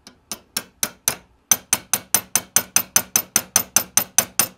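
Small hammer tapping a pin punch to drive a wheel axle out through a model locomotive chassis held in a vise: a few light taps, a brief pause, then a steady run of about five quick, sharp taps a second as the axle is knocked through.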